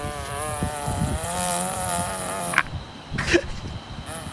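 A dog's long, buzzy fart that wavers in pitch, with a couple of short clicks about two and a half and three seconds in.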